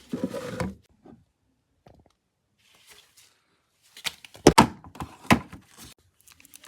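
Handling noises in a small room: a brief rustle at the start, then a cluster of sharp knocks and thunks from about four to five and a half seconds in.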